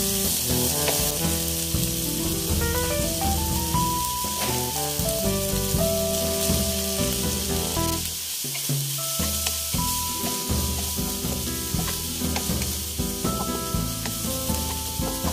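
Corn kernels and fried tofu cubes sizzling in hot oil in a nonstick wok while being stir-fried with a wooden spatula, with light knocks of the spatula on the pan. Background music with a stepping melody plays along.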